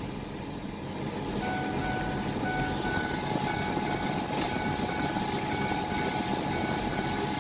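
Pickup truck engine idling steadily, heard from inside the cab, with faint high tones coming and going.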